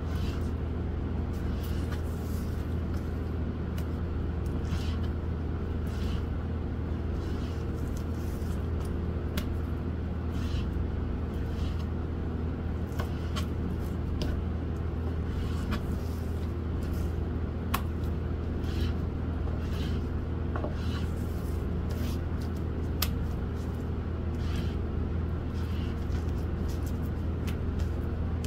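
Knife slicing raw chicken breast on a plastic cutting board, a soft stroke about once every second or so, with an occasional sharp click of the blade on the board. A steady low mechanical hum runs underneath and is the loudest sound throughout.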